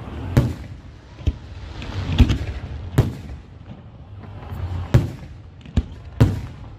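Aerial fireworks shells bursting in a run of sharp bangs, about seven of them at uneven spacing.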